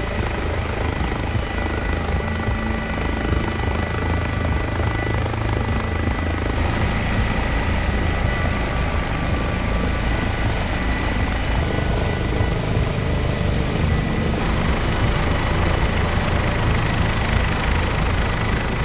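Twin-engine Airbus helicopter running on the ground with its main rotor turning: a steady high turbine whine over the rotor's low, pulsing thrum.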